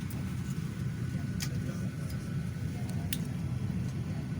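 Steady low engine drone, with two sharp clicks less than two seconds apart.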